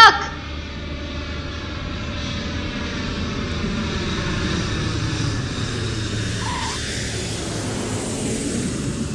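Twin-engine jet airliner coming in to land: a steady engine rumble with a slowly falling whine that swells toward the middle and then eases off.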